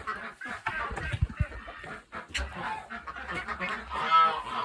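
A mixed poultry flock of ducks, geese and chickens calling over one another, with a few low thuds about a second in and one louder call about four seconds in.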